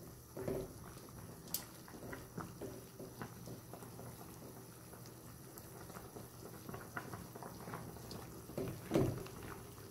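Chicken soup simmering in an aluminium pot, stirred with a wooden spoon, with faint liquid sloshing and scattered light clicks. A louder bump comes near the end.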